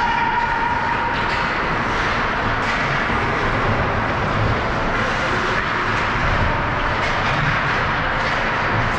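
Steady ice-rink game noise from an ice hockey game: skates scraping and carving the ice, with scattered faint knocks. A held tone dies away about a second in.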